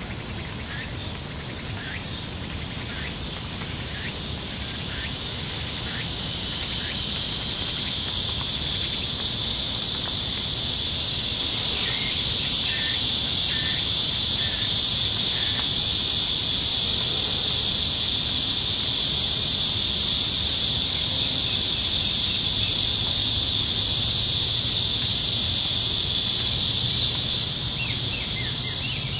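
Dense, steady high-pitched insect chorus filling a summer woodland. It pulses about once a second at first, grows louder about a third of the way in and eases off near the end.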